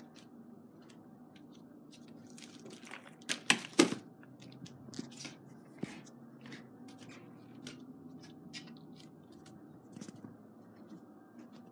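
Scattered short clicks and rustles over a faint steady hum, with two louder clicks close together about three and a half seconds in.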